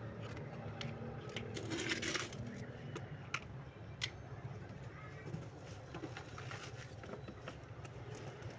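Rustling and scattered light clicks as the sheep feed mixture and its containers are handled, with a louder rustle about two seconds in, over a steady low hum.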